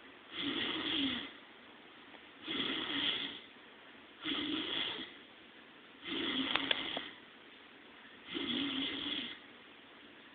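A man snoring: five snores, each about a second long and roughly two seconds apart, with a brief click during the fourth.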